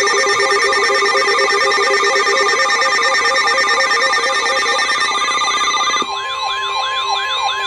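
Layered electronic emergency alert tones from a weather-radio severe thunderstorm warning: a steady high alarm tone, a two-note alternating beep and repeating siren-like sweeps. About six seconds in the beeping drops out, leaving the steady tone and a rapid rising-and-falling warble.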